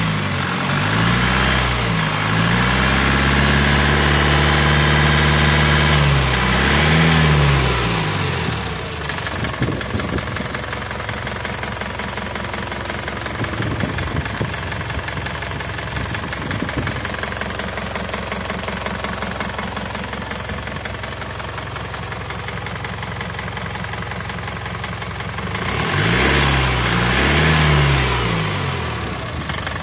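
Isuzu 4JJ1-TC four-cylinder turbo diesel running in the truck: revved up and held for several seconds with a quick blip, dropped back to a steady idle, then revved twice more near the end. It is running again after its ECU was reprogrammed and shorted harness wires were repaired.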